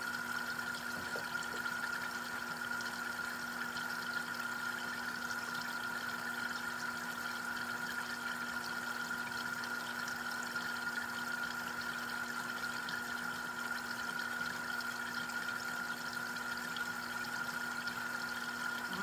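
Water circulated by a VIVOSUN 800 GPH submersible pump trickling and splashing steadily down inside a 3D-printed hydroponic tower, over a steady hum.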